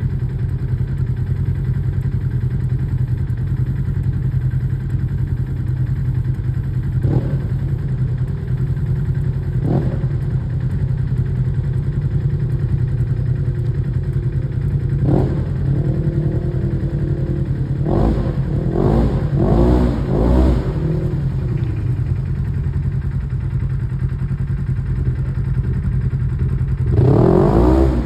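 Off-road vehicle engine running steadily, with short revs now and then, a run of rising and falling revs partway through and a louder rev near the end as the side-by-side pushes through muddy water.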